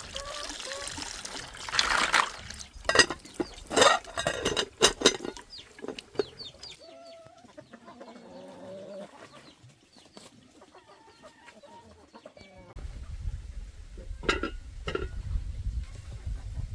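Chickens clucking in short calls, with a cluster of loud, sharp noises in the first few seconds and two more near the end.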